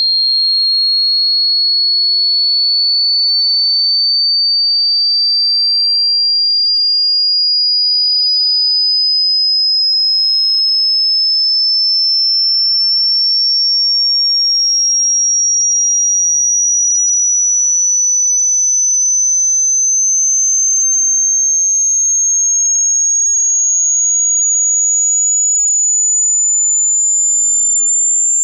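A single pure sine tone, high-pitched and climbing slowly and evenly in pitch at a steady loudness. It is part of a hearing-test frequency sweep from 20 Hz to 20,000 Hz.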